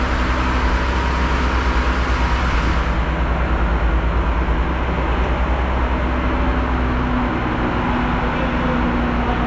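A truck's diesel engine running steadily at a fast idle, a loud, even low pulsing with a steady hum over it.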